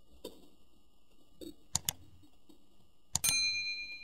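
Sound effects for a subscribe-button animation: mouse clicks, including a sharp double click a little before halfway, then a louder click near the end and a bright, bell-like chime ringing out and fading.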